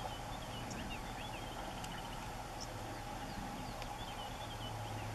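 Small wild birds chirping in short runs of quick notes, one near the start and another about four seconds in, over a steady low hum.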